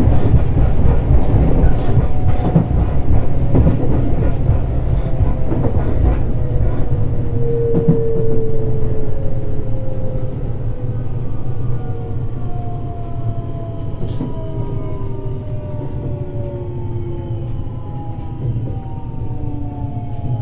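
Interior running sound of a JR West 521 series electric train: wheel and rail rumble with the motors' whine falling steadily in pitch as the train slows, the noise easing toward the end.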